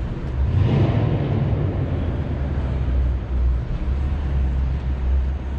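Background noise of a large, busy exhibition hall: a steady low rumble with a general hiss over it, swelling briefly about half a second in.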